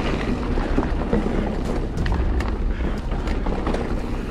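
Mountain bike riding fast down a dusty dirt singletrack, heard from on the rider: wind rumbling on the microphone over the rolling tyres on dirt, with scattered sharp clicks and rattles from the bike and loose stones.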